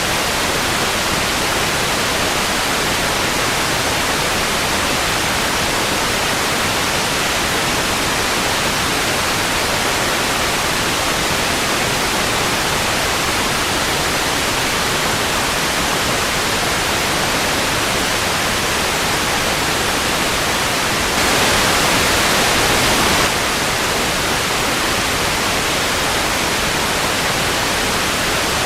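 Steady television static hiss, an even rushing noise, briefly a little louder and brighter about three-quarters of the way through.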